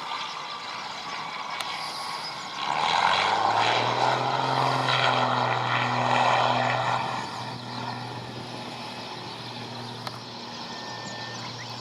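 A propeller airplane's engine passing close by: a steady low propeller drone that comes in loudly about three seconds in, swells with a rushing sound for a few seconds, then eases to a quieter steady hum as it moves away.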